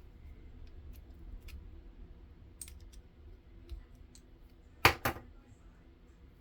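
Small clicks from a car door lock cylinder and hand tools being handled while its wafers are read, loudest as two sharp clicks close together about five seconds in.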